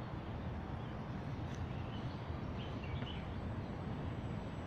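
Steady wind rumble buffeting the microphone outdoors, with a couple of faint bird chirps about two and a half and three seconds in.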